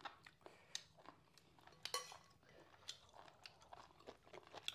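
Faint eating sounds during a meal: chewing, with scattered light clicks of utensils against bowls.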